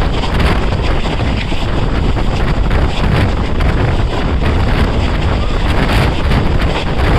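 Wind rushing over the microphone with a heavy, steady rumble of a moving passenger train's wheels on the track.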